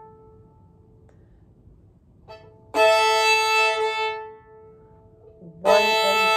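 Fiddle played with a bow, twice: each stroke an up-bow slur that starts on the A string and rises onto the A and E strings sounding together, held for a second or two.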